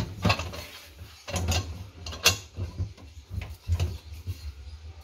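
Hands rubbing rock salt over a whole raw chicken in an aluminium pot: irregular rubbing and handling noises, with several short knocks against the pot.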